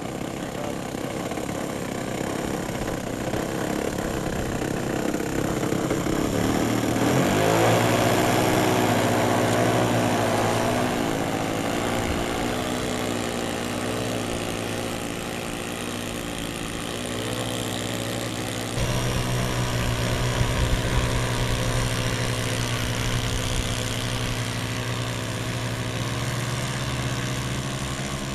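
The twin engines of a radio-controlled Transall model plane running on the ground. About a quarter of the way in the pitch rises and settles into a steadier, louder run, and about two-thirds through the sound steps up suddenly in loudness and stays there.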